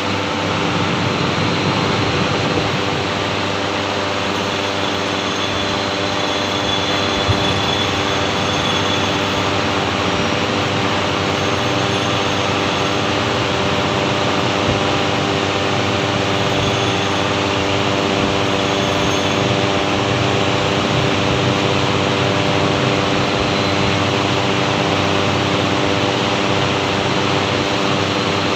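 Workshop machinery running steadily: a constant hum of several steady tones over an even whirring noise, with one brief knock about seven seconds in.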